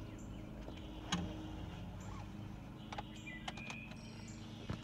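Quiet outdoor background with a few faint bird chirps and several light clicks.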